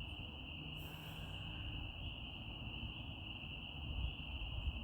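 A dense chorus of tree frogs calling, merging into one steady high-pitched sound. A short hiss comes about a second in, over a low rumble.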